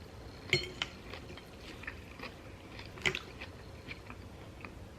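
Close-up chewing and crunching of a mouthful of crisp romaine lettuce salad: a run of small crunches, with two louder sharp clicks about half a second in and about three seconds in.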